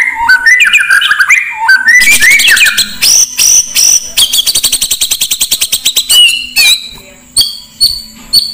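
Oriental magpie-robin singing loud whistled phrases that slide up and down. Around the middle it breaks into a fast run of repeated notes, about ten a second, and it ends with a few scattered whistles.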